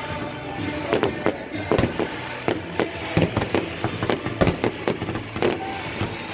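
Aerial fireworks going off in a rapid, irregular string of bangs, about three a second, some with a short echo after them.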